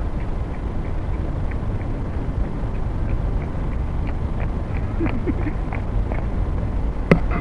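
Steady low rumble of outdoor background noise, with faint scattered ticks and one sharp click near the end.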